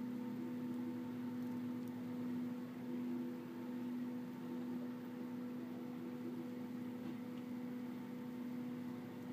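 Steady machine hum: a constant low tone with fainter higher overtones over a soft even hiss, unchanging throughout.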